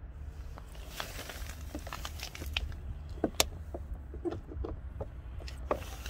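Irregular plastic clicks and scraping as a side-marker lamp is pried out of its clip in a car's front fender, with two louder snaps, one midway and one near the end.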